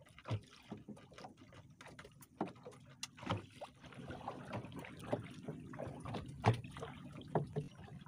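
Small boat on the water, with irregular light knocks and thuds against its hull and faint water lapping.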